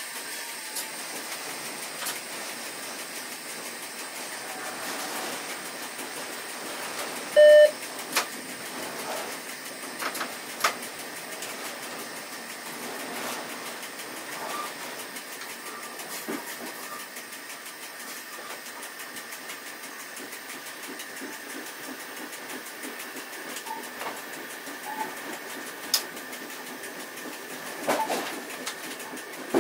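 Cab noise of a Trenord double-deck control car under way: the steady running noise of wheels on rail, with a few sharp clicks. About seven and a half seconds in comes one short, loud electronic cab beep, typical of the SCMT train-protection system acknowledging a trackside information point.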